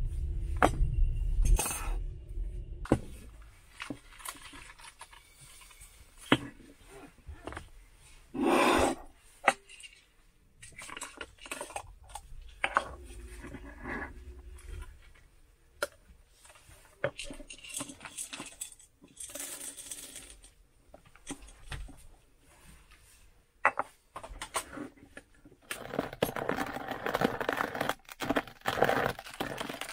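Manual coffee grinder being handled and cranked: scattered clicks and knocks of coffee beans and the grinder's metal and plastic parts, with dense crunchy grinding near the end. A low rumble fades out in the first few seconds.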